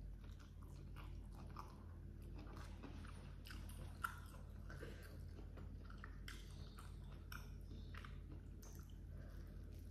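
Close-miked chewing of a mouthful of rice and baby squid, with many small wet clicks and crackles, while fingers pick through the food on a banana leaf. One sharp click about four seconds in, over a steady low hum.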